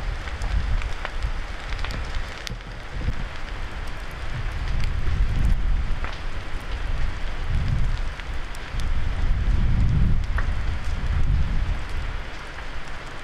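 Wildfire burning through ground litter and downed logs: a steady crackling hiss with scattered sharp pops, over a low rumble that swells and fades.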